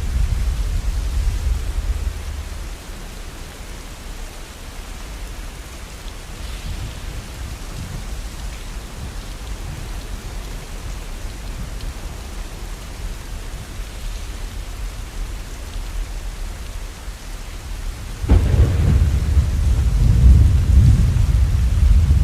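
Steady rain falling, with a low roll of thunder dying away in the first couple of seconds. Near the end a loud, deep thunder rumble breaks in suddenly and keeps rolling.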